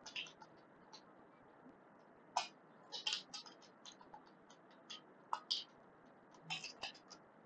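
Computer keyboard keys tapped in short, irregular groups of faint clicks as lines of code are selected, copied and pasted.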